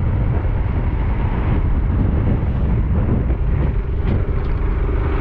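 Motorcycle on the move: steady wind rumble on the microphone over the engine and road noise, with a faint steady hum coming in about three and a half seconds in.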